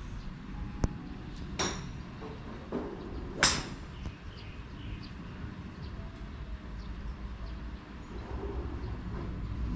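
Golf balls being struck at a driving range: a few sharp cracks of club heads hitting balls in the neighbouring bays, the loudest about three and a half seconds in, over a steady low rumble.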